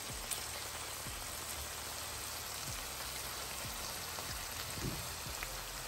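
Ackee and red herring with onions and peppers sizzling in oil in a frying pan: a steady hiss with a few faint pops.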